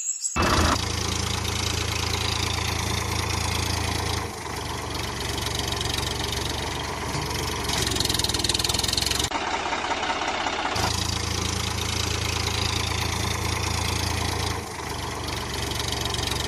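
Engine idling steadily with a knocking beat, like a tractor engine, breaking off abruptly at a few points, most clearly for about a second and a half near the middle.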